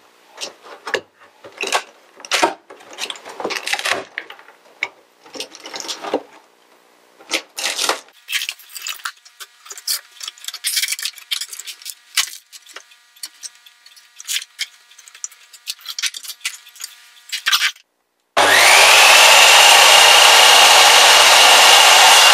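Pieces of a broken wooden floorboard being pried and pulled out by hand: irregular cracking, scraping and clattering of wood. After a brief gap about 18 seconds in, a corded handheld power tool starts up with a rising whine and runs steadily at full speed.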